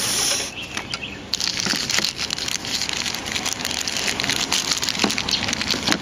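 Thin clear LDPE plastic bag crinkling and crackling as a smartphone is slid out of it by hand, a dense crackle throughout.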